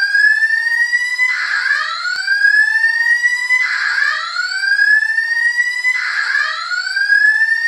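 Simplex 4100U voice evacuation fire alarm sounding its whoop alert tone: a loud pitched tone that rises slowly and restarts about every two and a half seconds, heard as three rising whoops plus the end of one more.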